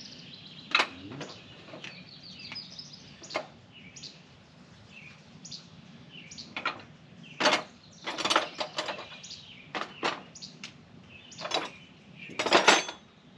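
Metal hand tools clinking and clattering in a toolbox as someone rummages for a ratchet and socket, in irregular bursts that are loudest near the end. A bird chirps in the first few seconds.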